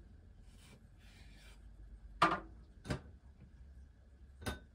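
Kitchen knife cutting tomatoes on a wooden cutting board: a soft rubbing sound about a second in, then three sharp knocks of the knife and pieces on the board, the first the loudest.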